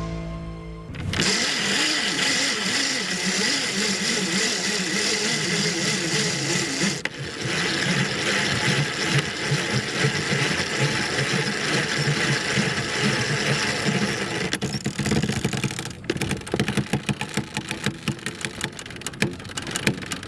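Sailboat winch being cranked under load, a mechanical whirring whose pitch rises and falls with the crank speed, with rapid clicks in the last few seconds.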